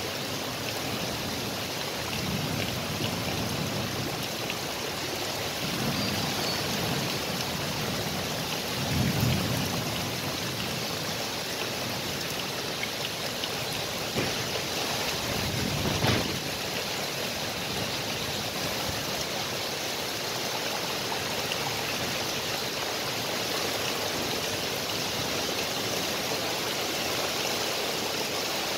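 Heavy rain falling steadily, a dense even hiss. A few brief low rumbles swell up, the strongest about nine and sixteen seconds in.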